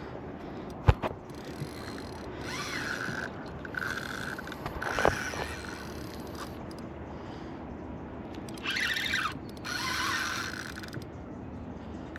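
Fishing reel's mechanism ratcheting and whirring as a hooked mulloway is fought on light line. A sharp knock comes about a second in.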